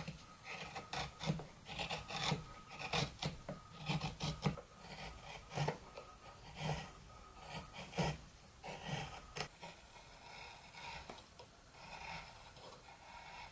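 A flat chisel paring cedar by hand: irregular short scraping cuts, each lifting a curled shaving. The cuts come quickly at first and grow fewer and softer after about ten seconds.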